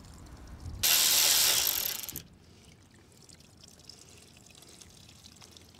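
Fuel-diluted engine oil, mostly gasoline, gushing out of a Generac pressure washer's engine crankcase for about a second and a half, then stopping sharply, followed by faint ticks. The crankcase is flooded with fuel.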